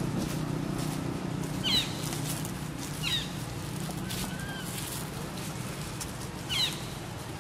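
Short, high-pitched animal calls that slide downward, three times, over a steady low hum.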